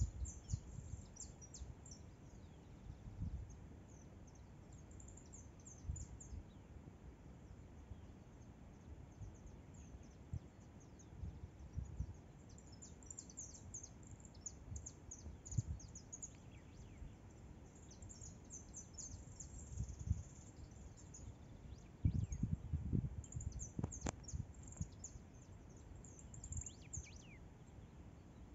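Small birds chirping in quick, repeated runs of short high calls, over a low background rumble with occasional louder low bumps.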